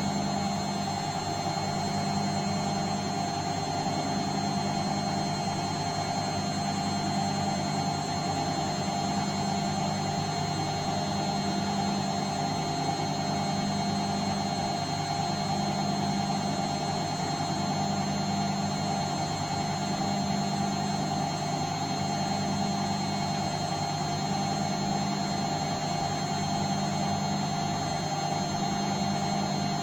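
Bosch washing machine running: a steady motor hum with a low tone that swells and fades about every two seconds.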